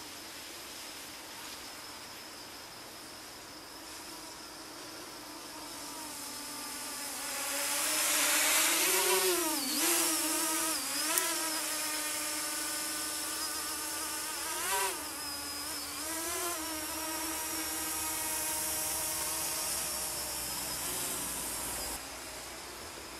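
Mini tricopter's electric motors and propellers buzzing in flight, the pitch dipping and rising as the throttle changes. The buzz swells as the craft comes near, loudest about eight to eleven seconds in, then settles to a steadier buzz.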